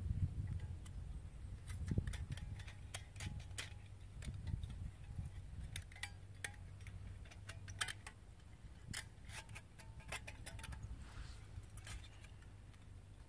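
Thin metal parts of a folding camping wood stove clinking and clicking as they are handled and fitted together, in scattered light clinks.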